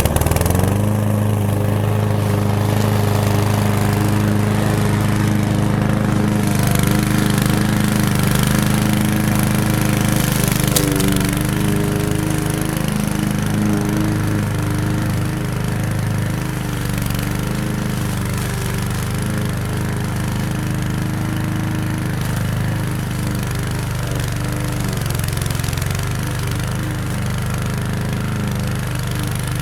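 Petrol walk-behind lawn mower engine running steadily, cutting tall grass. Its pitch dips briefly about ten seconds in, then it runs on slightly quieter.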